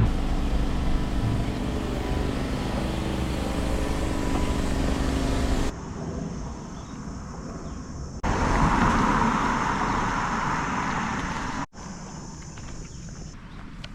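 A vehicle engine running with a steady low hum, then abrupt cuts to other clips of outdoor noise without words.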